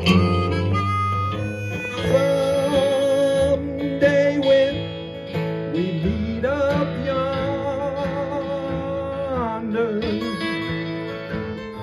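Live country band playing an instrumental break: acoustic guitars strumming chords while harmonica and fiddle carry the melody in long held notes that bend and waver.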